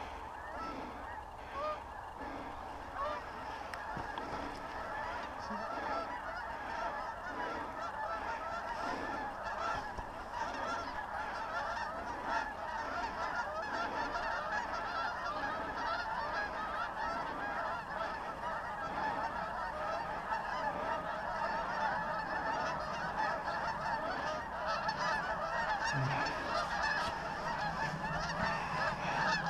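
A large flock of wild geese calling, many honks overlapping in a constant din that grows gradually louder.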